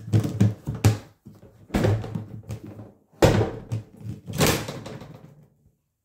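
Irregular knocks and thumps from a plastic portable washing machine being handled: about five bursts of bumping and rattling that die away shortly before the end.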